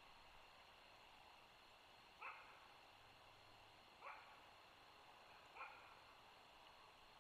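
Three short, faint animal calls, about one and a half to two seconds apart.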